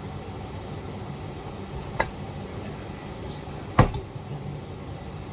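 Two sharp knocks about two seconds apart, the second louder, over a steady low hum.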